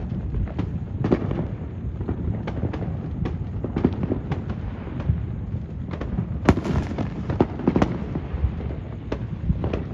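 Fireworks going off all around: a continual run of irregular bangs and pops, the sharpest and loudest crack about six and a half seconds in, over a constant low rumble.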